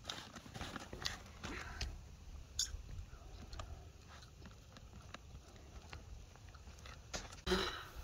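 A knife spreading butter onto raw sirloin steaks in a metal tray: small scattered scrapes and taps. A louder single clunk near the end.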